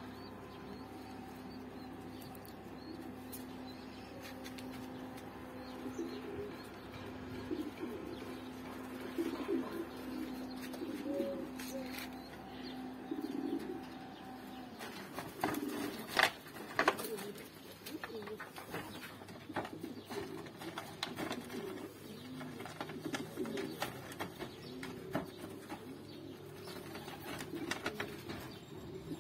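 Domestic pigeons cooing repeatedly, over a steady low hum that stops about halfway through, with a few sharp knocks in the second half.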